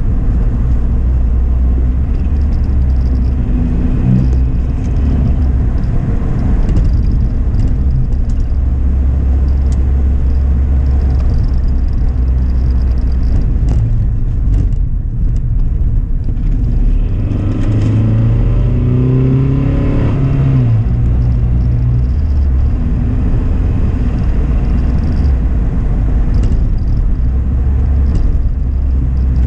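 Car engine and tyre noise heard from inside the cabin while driving. About two-thirds of the way through, the engine note rises for a few seconds and then drops back.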